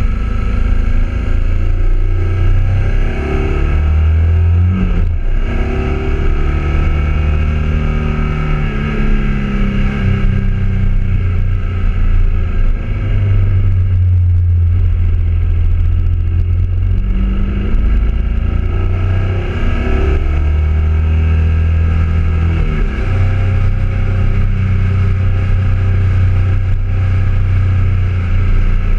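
BMW twin-cylinder motorcycle engine running under way, its pitch rising and falling several times as the throttle opens and closes and the gears change, over a steady low rumble of wind and road.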